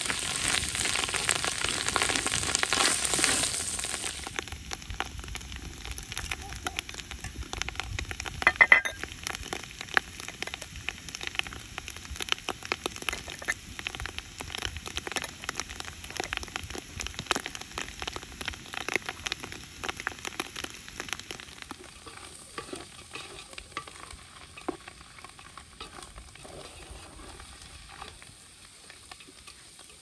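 Wild mushrooms and walnuts frying in a large aluminium pot, sizzling and crackling while a wooden spoon stirs and scrapes through them. The sizzle is strongest in the first few seconds, there is one sharper knock about nine seconds in, and the crackling thins out and fades toward the end.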